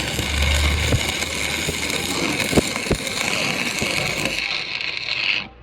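A workshop machine running steadily with a high whine and two sharp knocks a little before the middle; it cuts off suddenly near the end.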